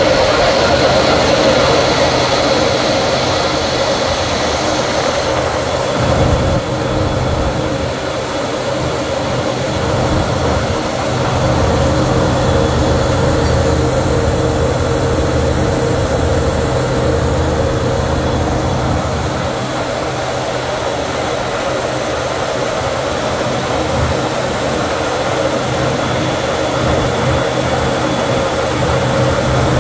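Steady flight-deck noise of a Boeing KC-135R Stratotanker: its CFM F108 turbofan engines running, mixed with the rush of air, under a constant low hum. The noise is a little louder for the first five seconds or so and dips briefly about six seconds in.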